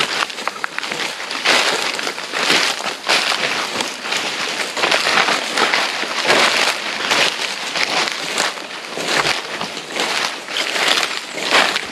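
Footsteps crunching through dry leaf litter and twigs on a forest floor, an uneven run of crackling steps with no pause.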